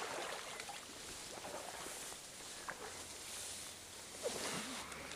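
Steady hiss of a small creek's running water, with a few faint clicks and rustles.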